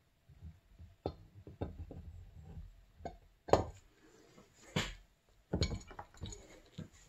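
Clinks and knocks of a two-stroke snowmobile engine's crankcase halves as the upper half is set onto the lower half and pressed down by hand, with a low rubbing rumble in the first couple of seconds. The loudest knock comes about three and a half seconds in.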